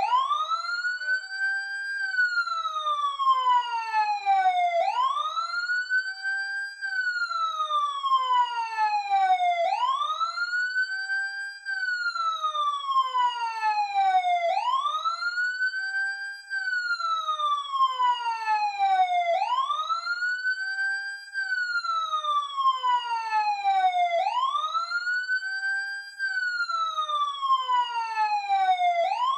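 Emergency vehicle siren heard close up, sounding a slow wail: each cycle rises in pitch over about two seconds, holds briefly at the top, then falls over about three seconds, repeating about every five seconds.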